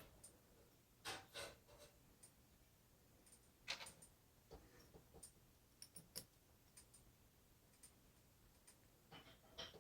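Faint, scattered clicks and taps of small parts and tools being handled while the drive wheel's casing is refitted, with a short cluster of clicks near the end.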